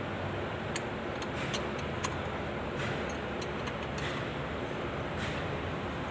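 A steel spanner clinking against a bolt on the drive case as the bolt is turned: a few sharp metallic ticks, the loudest about a second and a half in, over a steady background noise.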